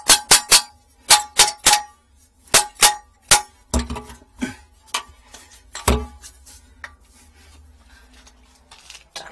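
Metal tool striking a metal pipe fitting in a valve pit: a quick run of ringing metal strikes, then slower knocks with two heavy, dull thuds about four and six seconds in, dying away to faint taps. The fitting is being knocked to loosen the old joint so it can be pulled out.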